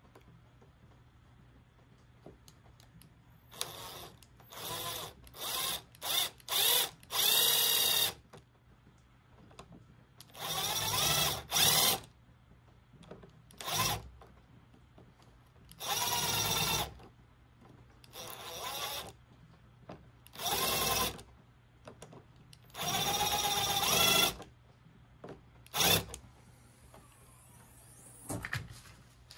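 Electric drill with a step drill bit boring a hole through a car's painted trunk lid in about a dozen short bursts of trigger. Each burst lasts half a second to two seconds, and the motor's pitch rises and sags as the bit bites.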